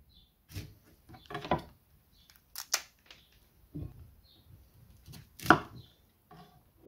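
Knife cutting raw cauliflower florets on a wooden cutting board: a string of separate crisp crunches and snaps as the stems are cut through, with knocks of the blade on the board, the loudest about two-thirds of the way in. Faint short bird chirps sound between the cuts.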